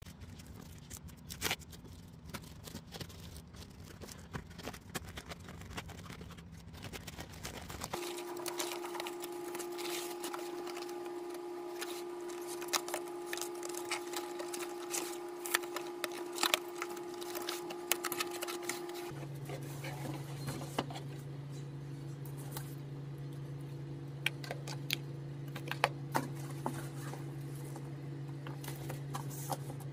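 Parcel packaging being handled and opened: crinkling plastic wrap and cardboard, scissors snipping through packing tape, and scattered clicks and taps as boxes are moved and set down. Under it runs a steady hum that jumps to a different pitch twice.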